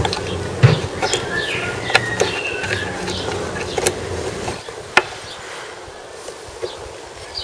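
Clicks and light knocks of hands working loose the fuel shut-off valve on a Mariner 4 hp outboard. A steady low hum runs underneath and stops a little past halfway, and birds chirp faintly now and then.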